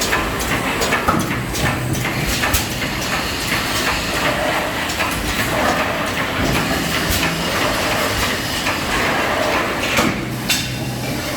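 Automated muffler welding and press line running: a steady machine hum under frequent irregular metal clanks and knocks, with a heavier knock about ten seconds in.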